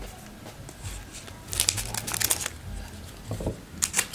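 Plastic wrapper of a trading-card pack crinkling as it is torn open, in two bursts: a longer one a second and a half in and a short one near the end.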